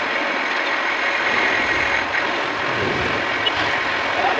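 Metal lathe running, its spindle turning a steel workpiece held between the chuck and the tailstock centre: a steady mechanical whir.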